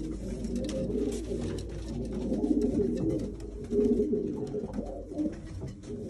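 Racing pigeons cooing, repeated low, throaty coos.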